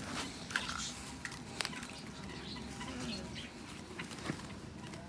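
Trapped bulbuls fluttering and giving short chirps inside a cloth-covered cage, with a few sharp taps about half a second, a second and a half, and four seconds in.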